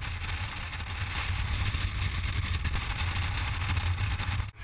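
Wind buffeting an action camera's microphone in the open bed of a moving pickup truck, a steady heavy rumble with the hiss of air and road noise. It drops out briefly near the end.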